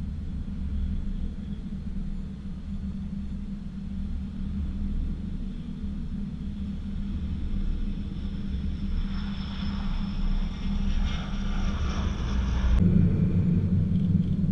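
Transall C-160 military transport's two Rolls-Royce Tyne turboprops on a low flyover: a distant rumble grows louder as the aircraft approaches, with a high turbine whine rising over it. The whine cuts off suddenly about thirteen seconds in, leaving a low rumble.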